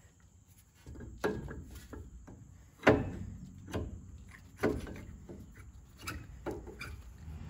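Metal clicks and clunks as a rear brake caliper is worked by hand over new brake pads and onto its caliper bracket: about six separate knocks, the loudest about three seconds in.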